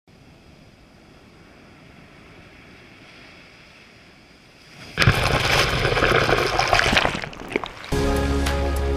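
Sea waves washing up the sand at the waterline, faint at first; about five seconds in a wave surges in loudly with splashing. Music with a steady bass line comes in about a second before the end.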